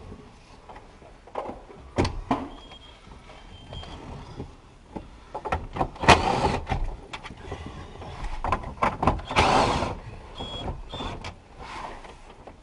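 Knocks, clatter and scraping of plastic dash parts and tools inside a Ford F-150's dashboard during a heater core replacement, with louder stretches of rubbing about six seconds in and again near ten seconds.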